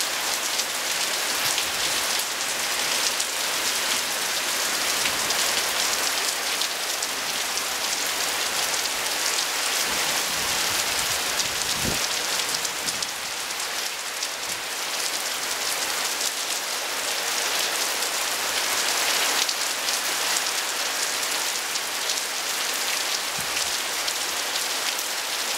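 Heavy rain pouring steadily onto the garden lawn, tree leaves and tiled roofs, an even hiss with no let-up.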